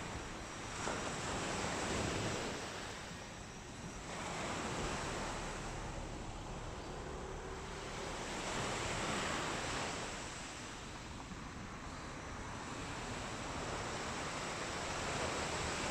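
Sea waves breaking and washing up on a beach, the surf swelling and easing every few seconds.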